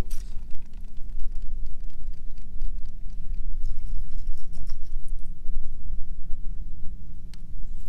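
Water lapping and knocking against a bass boat's hull under a low rumble, with a faint steady hum from about three seconds in. A fishing rod's cast whooshes right at the start.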